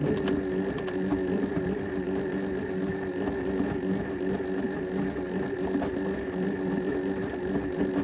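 LG WD-12380FBN washing machine's drive motor running with a steady hum.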